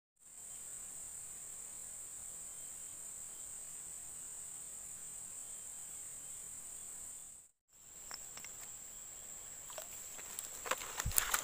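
Insects droning steadily in a high-pitched band, with a brief gap about seven and a half seconds in. In the last few seconds scattered clicks and rustling come in and grow louder.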